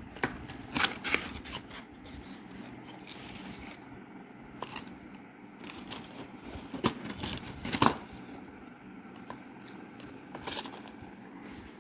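Cardboard box handled and opened: scattered scrapes, taps and clicks of card and the paper-wrapped fountain tubes inside, the sharpest knocks about seven and eight seconds in.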